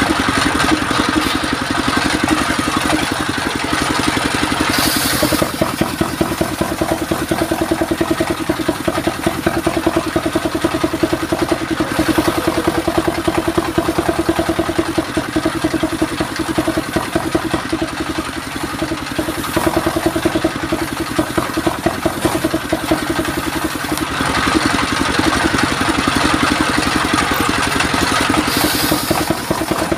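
Belt-driven circular sawmill: its engine runs steadily with a rapid chugging beat while the large circular saw blade rips mahogany into boards. The cutting noise swells several times as the wood is fed through the blade.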